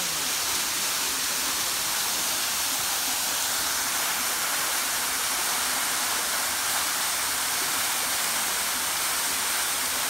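A 12 m plunge waterfall pouring into its rocky pool: a steady, even, hissing rush of falling water.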